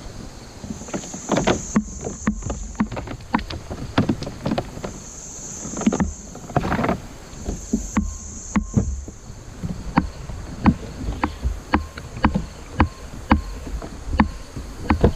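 Irregular knocks and bumps on a kayak, about one or two a second, with a low rumble of moving water and gear beneath. A high buzzing comes and goes in the background.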